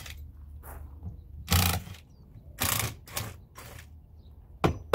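Cordless drill-driver running in short bursts, backing screws out of the trim under an RV slide-out, with a few sharp clicks near the end.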